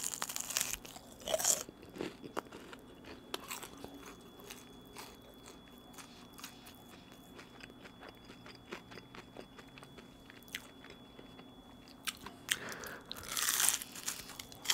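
Crunchy bites into breaded fried shrimp, close to the microphone: a loud crisp crunch at the start and another near the end, with quieter chewing clicks between.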